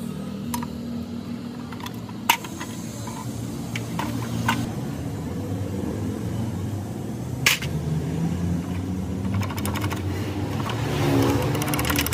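Metal tools and parts clinking sharply a few times as a power tool's gear housing is taken apart by hand, over a steady low mechanical hum.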